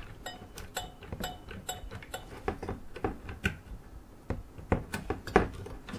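Stock Intel CPU cooler being wiggled back and forth to free it from the processor, giving irregular light plastic clicks and taps, with a couple of sharper knocks near the end. Cold thermal paste is still holding the cooler to the CPU.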